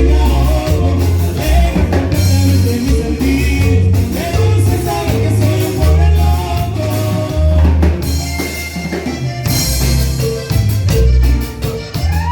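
Band music with a drum kit and a strong bass beat, with pitched melody lines above and perhaps a singing voice.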